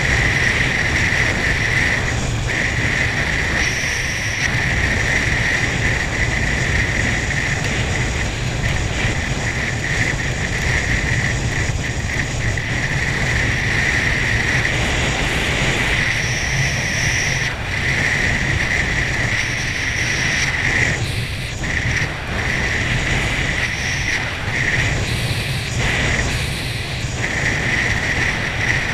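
Water ski skimming across a boat's wake at racing speed: a steady rush of wind and spray on the microphone, with a steady high-pitched whine running through it.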